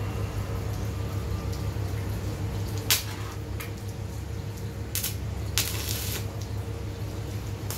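Stick-welding arc from a Lakoni Basic 123 IX inverter welder being struck on a thin steel plate: brief bursts of arc noise about three seconds in and again near five seconds, then a longer burst about six seconds in as the arc holds for a moment.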